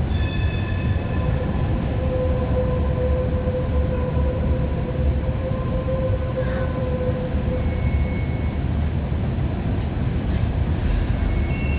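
Running noise of an MTR Light Rail Phase I car, heard from inside the car: a steady low rumble from the wheels and running gear. A high ringing tone fades out in the first second, and a steady mid-pitched tone holds for several seconds in the first half.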